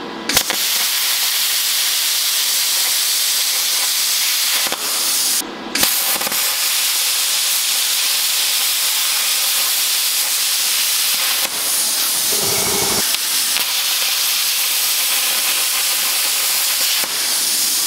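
Hand-held plasma cutter torch cutting through steel plate: a loud, steady hiss of the arc and compressed-air jet. It cuts out for a split second about five seconds in and picks straight back up.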